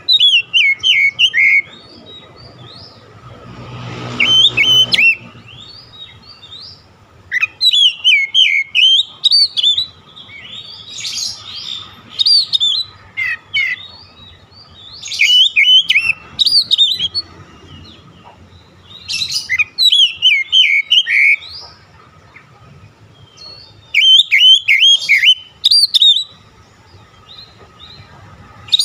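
Oriental magpie-robin singing: about eight loud bursts of song, each a run of quick sweeping whistles and chirps lasting one to two seconds, with short pauses between.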